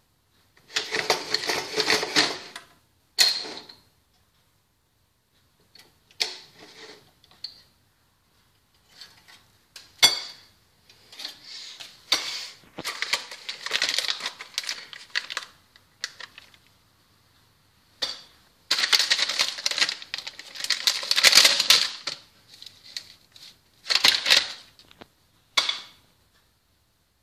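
Rough, forceful handling of sandwich things on a table: several bursts of clattering and rattling a couple of seconds long, broken by a few sharp knocks.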